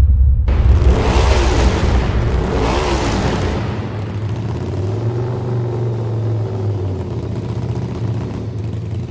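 Motorcycle engine revved twice, its pitch climbing and dropping each time, then settling into a steady low rumble.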